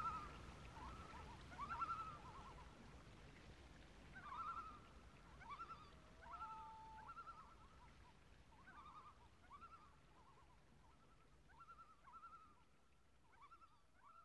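Common loon calling: repeated short wavering phrases, with one held note about six seconds in, growing fainter as the track fades out.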